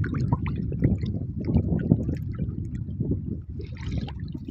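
Water splashing and sloshing around a person swimming, with irregular small splashes.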